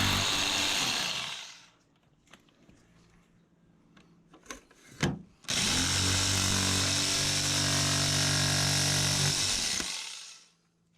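Handheld power tool cutting a hole in a thin plastic panel for a toggle switch: the motor runs steadily, winds down about a second and a half in, a few small knocks follow, and it runs again for about four and a half seconds before winding down.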